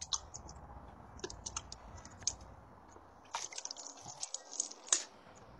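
Faint, scattered light clicks from a fishing rod and reel being handled and swung in a cast, with a quick run of clicks in the second half.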